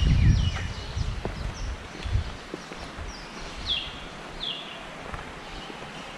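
Wild birds chirping, with short calls that slide downward: a cluster of them in the first second and two more clear ones about four seconds in. Beneath them are soft scattered clicks of footsteps on a path, and a brief low rumble near the start.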